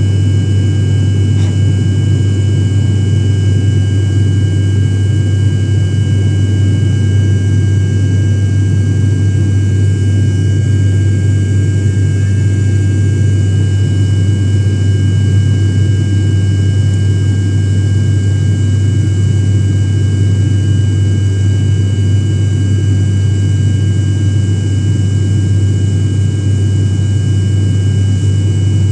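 Steady cabin drone of an airliner in flight: a loud, unchanging low hum with a few faint thin high tones above it.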